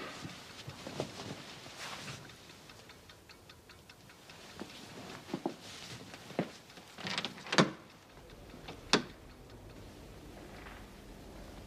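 Quiet handling sounds of a man getting up and dressing: cloth rustling, then a string of soft knocks and sharp clicks. The loudest is a sharp click about seven and a half seconds in, and another comes about a second and a half later. A low steady hum joins the background near the end.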